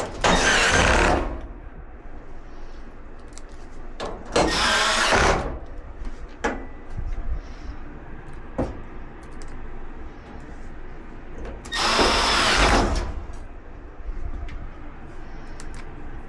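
Power drill/driver run three times in short bursts of about a second each, driving or backing out screws on the dryer's cabinet, with light clicks and handling of parts in between.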